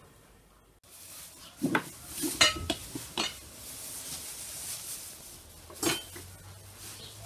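Kitchenware handled on a table: a handful of clinks and knocks of metal bowls, a spoon and glass jars. The loudest clatter comes about two and a half seconds in, with another near six seconds.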